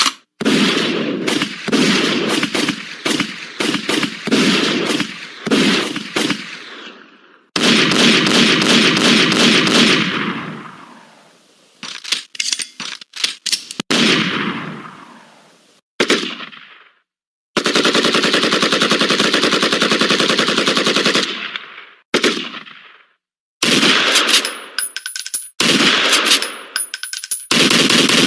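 Gunfire sound effects: a string of separate machine-gun bursts, each several seconds of rapid shots that fade out in an echoing tail, with a couple of single shots between them.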